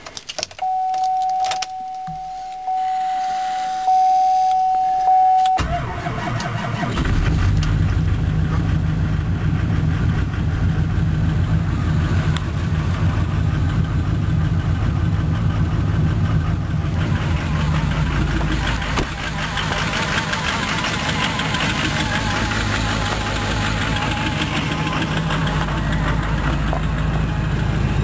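Modified 2005 Duramax 6.6 L turbo-diesel V8 (lowered compression, twin turbos, big injectors) cold-starting at −7 °F after a night outside, on one battery with no block heater. A steady electronic tone sounds first; about five and a half seconds in the engine fires and settles into a steady cold idle.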